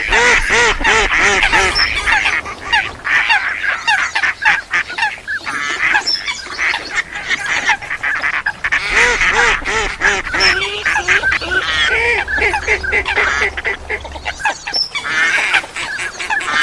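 Mixed flock of waterfowl calling over one another without pause: mallards quacking together with water hens and other wild ducks.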